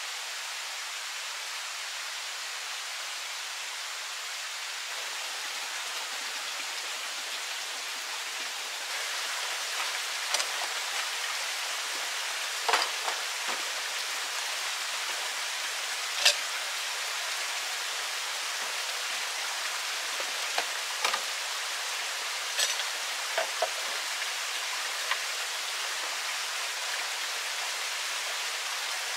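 Steady rush of flowing stream water, with scattered light knocks and clinks from about ten seconds in as plastic cups and containers are set down on a slatted bamboo shelf.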